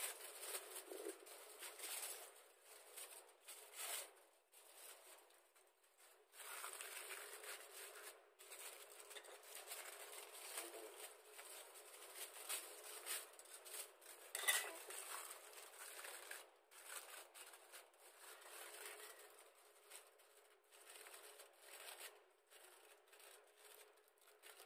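Aluminium foil crinkling and crackling as it is folded and pressed by hand around a metal leche flan mold (llanera), faint and irregular, with one louder crackle about halfway through.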